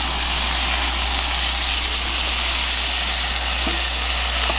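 Beef burger patties sizzling in hot oil in a cast-iron skillet, a steady frying hiss, over a low steady hum.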